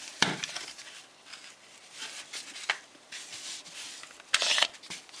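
Handling noise from a WE G18C gas blowback airsoft pistol and its magazines being turned over and set down on a cloth-covered table: a sharp click just after the start, a few lighter clicks and rustles, and a brief louder clatter about four seconds in.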